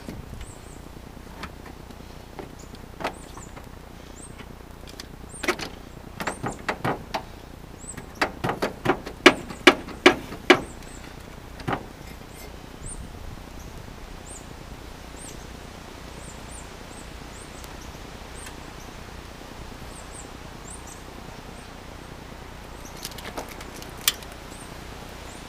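Clicks and knocks of hand work in the engine bay of a 1994 Ford Escort GT, with the engine off: a quick run of sharp taps from about five to twelve seconds in and a single tap near the end. Birds chirp faintly.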